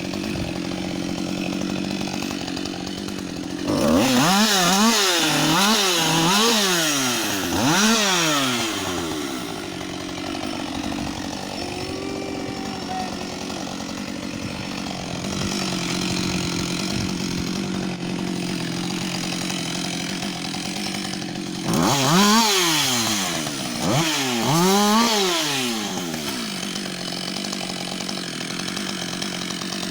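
Husqvarna 560 XP two-stroke chainsaw running at idle, revved up and down in several quick throttle bursts about four seconds in and again about two-thirds of the way through.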